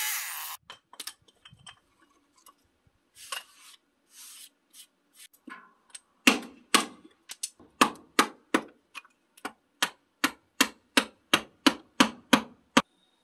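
Hammer striking a wood chisel to pare out a chainsaw-cut notch in a wooden post: a few scattered taps and scrapes, then from about halfway through a steady run of about twenty sharp strikes, roughly three a second.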